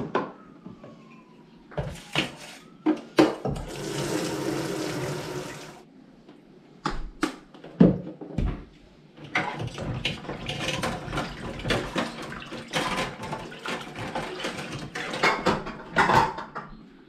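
Washing up by hand at a stainless steel sink. A tap runs for about two seconds, then comes a long stretch of water splashing with plates, cutlery and a frying pan knocking and clinking against the steel.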